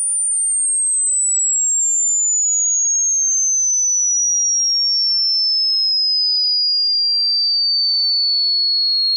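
Electronically generated pure sine tone, very high-pitched, starting abruptly and gliding slowly and steadily down in pitch while staying loud.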